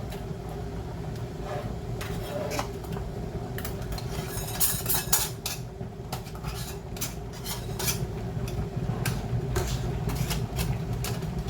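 Metal canning-jar lids and screw bands clinking and knocking against glass canning jars as they are handled and fitted on, in a run of irregular clicks, loudest about halfway through.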